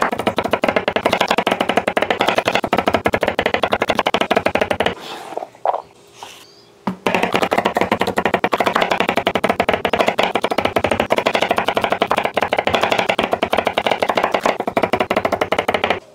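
Background music with a fast, busy, evenly repeating rhythm. It breaks off for about two seconds about five seconds in.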